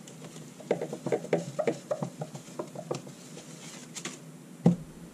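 A dry-erase whiteboard wiped with a cloth: a quick run of short rubbing strokes for a couple of seconds, then a single knock near the end.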